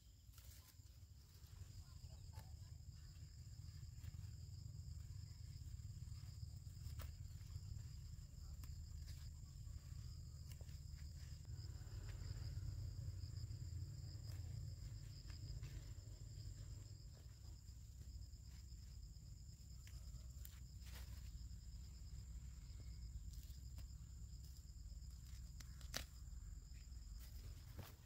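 Insects trilling steadily at two high pitches over a low rumble, with scattered soft snaps and rustles as squash shoots are picked and gathered.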